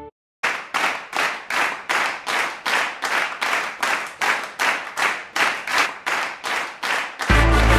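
Hand claps in an even rhythm, about three a second, after a brief silence. Loud music with a low beat starts abruptly near the end.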